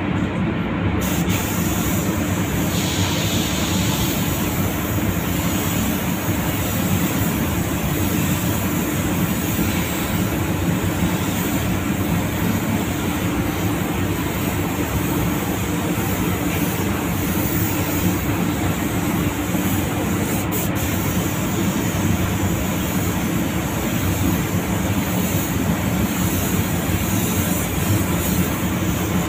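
Compressed-air paint spray gun hissing steadily as it lays a light, mist-like coat of metallic grey paint on a car body, over the constant rushing hum of the spray booth's air. The hiss thickens about a second in.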